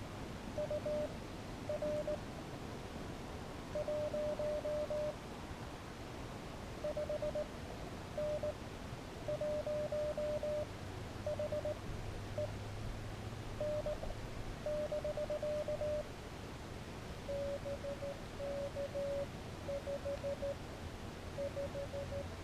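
Morse code (CW) tones from an Elecraft KX3 transceiver: a single steady beep keyed on and off in dots and dashes. About three-quarters of the way through the tone drops slightly lower in pitch.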